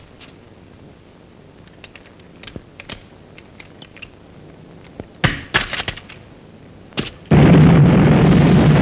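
Cartoon sound effects: a few sharp cracks about five seconds in and another near seven seconds, then a loud steady roar of a flamethrower firing begins suddenly.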